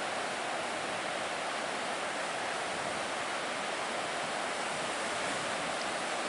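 Ocean surf breaking, a steady even rushing noise.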